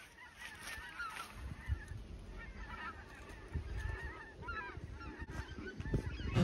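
A flock of wild geese calling as they fly overhead: many short honks overlapping throughout, over a low rumble.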